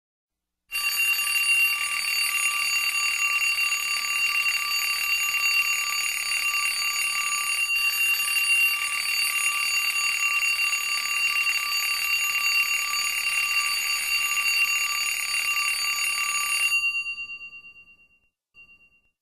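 TV static sound effect: a steady hiss with several steady high-pitched tones running through it. It fades out near the end.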